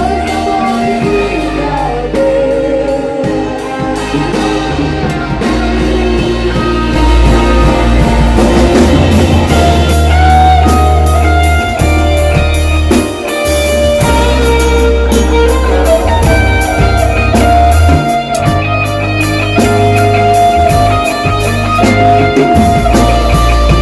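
A worship band playing a song, with guitar, bass and drum kit and a singing voice over it. Bass notes are held in long steady steps.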